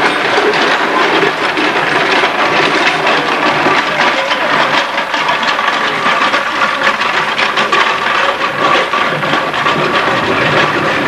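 Dense, irregular clatter of a marching costumed procession: many feet tramping and a small wooden-wheeled cart rattling along the street, with a background of crowd noise.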